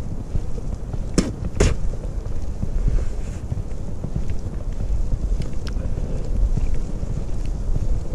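Wind buffeting the microphone in a low rumble while someone walks on snowshoes through fresh snow. Two sharp clicks come about a second in, half a second apart.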